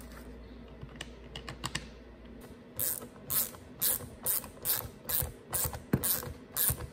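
Hand ratcheting screwdriver driving screws into a string trimmer's plastic handle housing. A few faint clicks come about a second in, then a regular run of ratchet clicks, about two a second.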